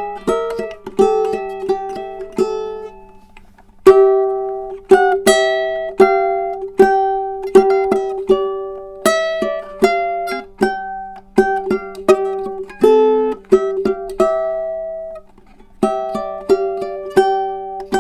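Tenor ukulele with a figured koa back and sides and a redwood top, played unplugged with no effects: an improvised melody of single plucked notes, about two a second, each ringing and fading. It breaks off briefly about four seconds in and again about three-quarters of the way through.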